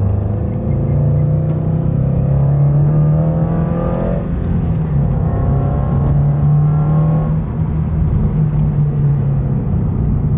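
Toyota GR86's 2.4-litre flat-four engine pulling hard through a JDL aftermarket exhaust, heard from inside the cabin with the windows up: a deep exhaust note that climbs in pitch twice, dropping back about four seconds in at a gear change.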